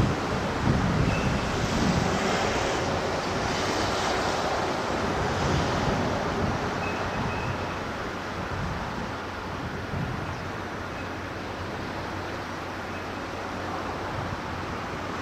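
Steady rushing noise of wind buffeting the microphone, with the sound of open water, a little louder over the first six seconds and easing after.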